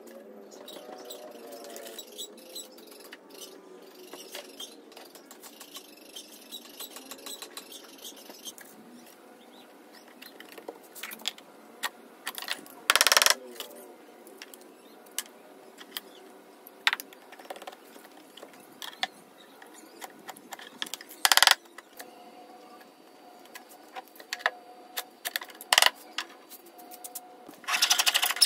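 Hand work on an HPL-laminated plywood cabinet: scattered faint clicks and taps, two short loud noisy bursts about halfway and two-thirds through, then scratchy rubbing inside a cubby that starts just before the end.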